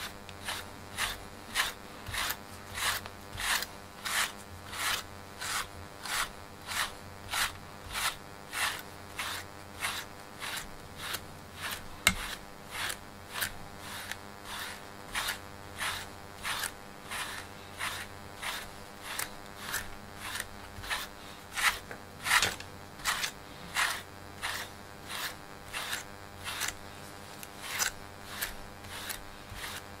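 A cat's thick fur being brushed with a grooming brush in short, regular strokes, about two a second. One sharp click sounds about twelve seconds in.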